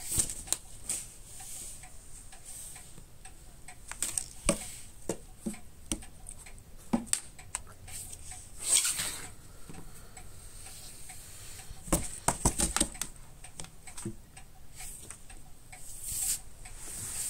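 A cat batting at a teaser toy inside a cardboard box: scattered taps and scrapes of paws on the cardboard and rustles of a cloth. There is a longer rustle about nine seconds in and a quick run of taps about twelve seconds in.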